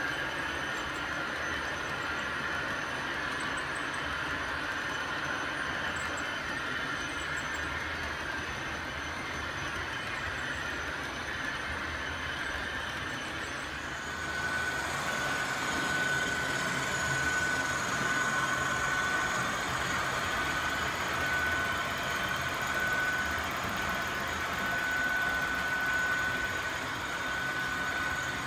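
Model railway trains running on the layout's track: a steady whirr of small electric motors and rolling wheels. It gets louder about halfway through, and a steady high whine joins in.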